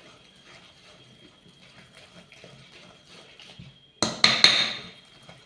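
Wire whisk stirring thick cake batter in a steel bowl: soft, faint strokes, then about four seconds in a sudden louder clatter of the whisk against the bowl with a few sharp clicks, dying away within about a second.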